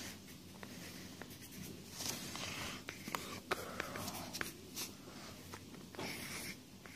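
Pen strokes scratching on paper during handwriting and drawing: short scratchy strokes mixed with small sharp ticks as the tip lands and lifts.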